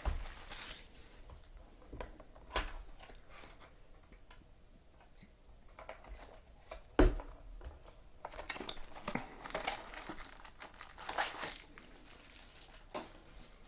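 Trading-card pack wrappers crinkling and tearing as packs are opened and the cards handled, in short scattered rustles with a sharp tap about seven seconds in.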